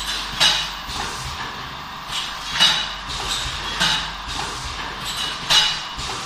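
Tea bag packaging machine running, a steady mechanical whir broken by sharp clattering strokes about every one to two seconds as it cycles.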